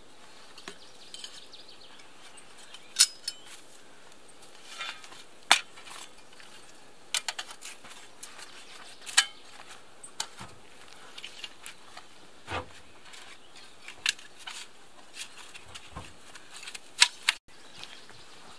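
Hand trowel striking and scraping into hard ground, with sharp clinks every second or two, some in quick pairs.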